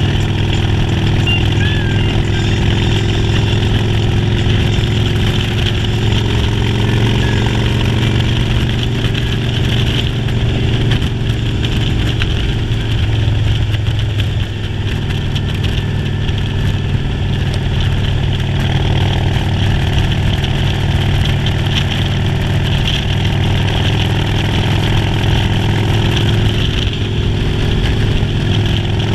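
Motorcycle engine running steadily during a ride, its note shifting slightly with a brief dip in level about halfway.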